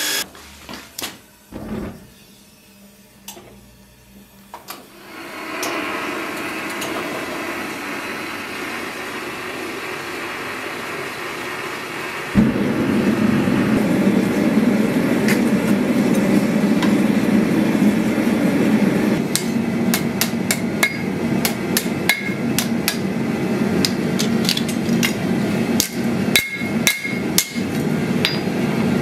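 A belt grinder winds down at the start, followed by a few knocks. A gas forge's burner then runs with a steady rush that turns louder and deeper about twelve seconds in. Over the last ten seconds a hammer strikes thin steel on an anvil, giving sharp ringing blows over the forge noise.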